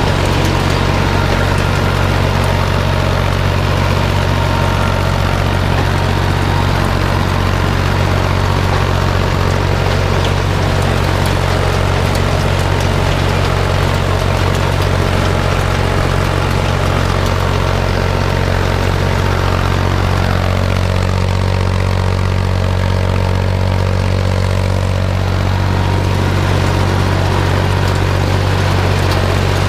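International tractor engine running steadily, with the mechanical hum of the working machinery over it; a higher tone dips and comes back about two-thirds of the way through.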